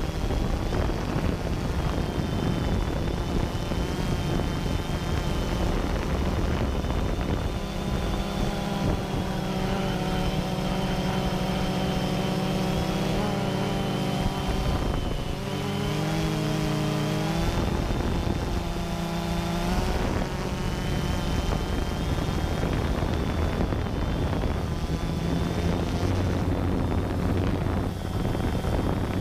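DJI Phantom 2 quadcopter's motors and propellers running in flight, picked up by the GoPro mounted on it: a steady buzz made of several pitched tones that shift up and down as the throttle changes, with a thin high whine above.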